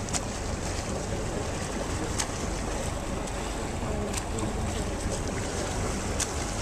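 Steady rumble of a pilot boat's engine mixed with wind and sea noise. A short sharp click comes about every two seconds.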